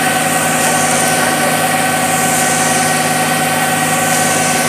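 Concrete mixer truck's diesel engine running steadily while it discharges concrete down its chute: a constant drone with several unchanging tones over a loud, even hiss.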